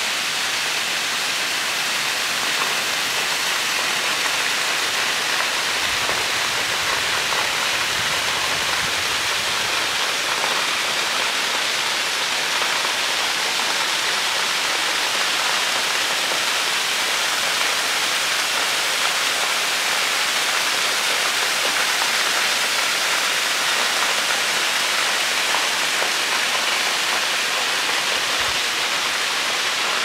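Small waterfall pouring steadily off a rock overhang and splashing into a shallow pool, a constant rushing hiss.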